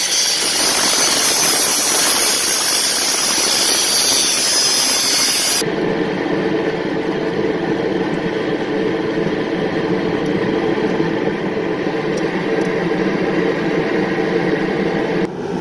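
Electric angle grinder buffing the rusty exhaust pipe at its flex section: a loud, harsh grinding hiss for about the first five and a half seconds. It then gives way to a steadier, lower machine hum that runs until just before the end.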